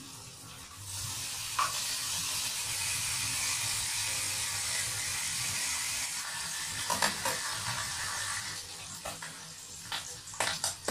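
Pork sizzling as it fries in a pan, a steady hiss that starts about a second in and fades near the end, with a few clicks of a utensil against the pan and a cluster of sharper clinks toward the end.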